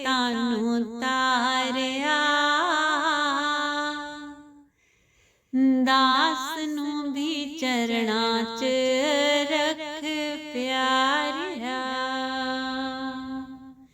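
A woman singing a Punjabi devotional shabad in long held notes with wavering ornaments, breaking off briefly about five seconds in.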